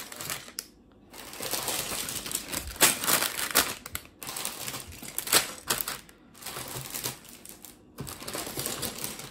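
Clear plastic bags full of Lego bricks crinkling, with the bricks inside clattering and clicking as the bags are handled and set down on a table. It comes in several spells broken by short, nearly silent gaps.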